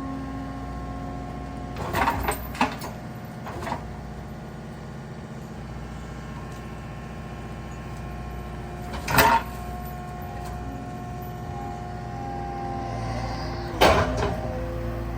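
Cat 299D2 skid steer's diesel engine running steadily as logs are loaded onto a log wagon. It is broken by several sharp knocks and clunks: a cluster about two seconds in, another near four seconds, and the loudest about nine and fourteen seconds in.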